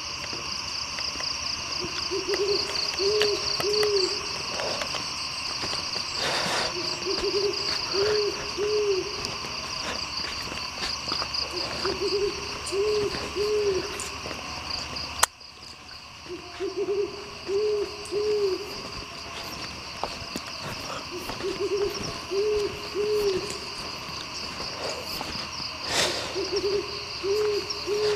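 An owl-like hoot, three short hoots in a row, repeating about every four to five seconds over a steady, pulsing chorus of crickets or other night insects. A sharp click sounds about halfway through, and the insect background drops briefly after it.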